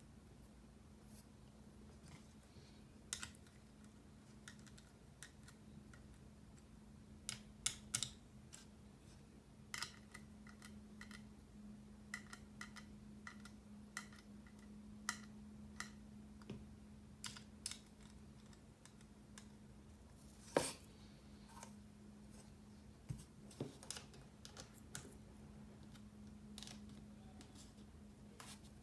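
Faint, irregular small clicks and taps of mechanical keyboard parts being handled during assembly, some with a brief light ring, and one sharper click about twenty seconds in, over a steady low hum.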